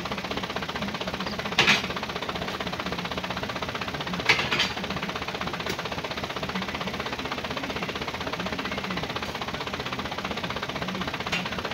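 Small truck's engine idling steadily. Sharp thuds sound as oil palm fruit bunches land in its metal cargo bed: about one and a half seconds in, twice a little after four seconds, and again near the end.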